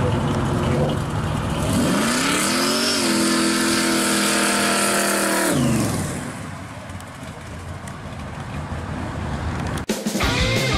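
Supercharged V8 hot rod accelerating away: the engine revs climb about two seconds in, hold high for a few seconds, then drop as the throttle lifts and fade as the car pulls away. Just before the end, rock music with electric guitar cuts in.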